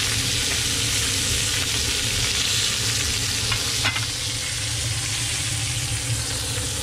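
Blackened red snapper fillet pieces sizzling steadily in butter in a frying pan, with a short tap about four seconds in.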